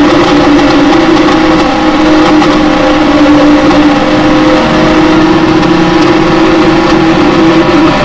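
Mock emergency-alert (EAS) alarm: a loud, buzzy, continuous alarm tone on a low pitch that wavers slightly, with a rough noisy edge.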